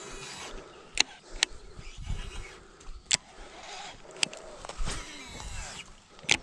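Close handling noise: clothing and grass rustling against the microphone, broken by about five sharp clicks and knocks, the loudest near the end, as a baitcasting rod and reel are handled.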